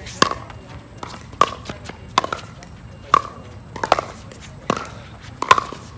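Pickleball rally: paddles striking a plastic pickleball in quick volleys, a series of sharp hollow pocks about one every three-quarters of a second, around seven hits.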